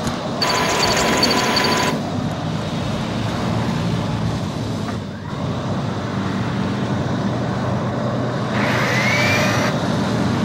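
Film sound effect of a robot hovertank's engines: a heavy, steady, engine-like rumble. A harsher burst with a pulsing high tone comes just after the start and lasts about a second and a half, and a rising whine comes near the end.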